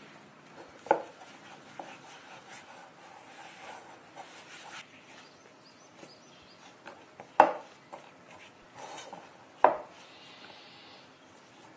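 Flour and sticky dough being mixed in an enamel bowl, first with a spatula and then by hand: soft rubbing and scraping throughout, with three sharp knocks about a second in, at about seven and a half seconds and at about nine and a half seconds.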